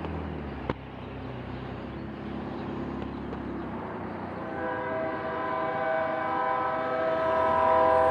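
Air horn of an approaching diesel freight locomotive sounding one long blast, a chord of several notes, starting about halfway through and growing louder. Before it, a low steady rumble.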